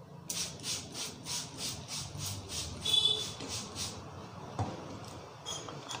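Hands rubbing briskly over hair and scalp in a vigorous head massage, a rhythmic swishing of about four strokes a second that stops after about four seconds, followed by a single knock.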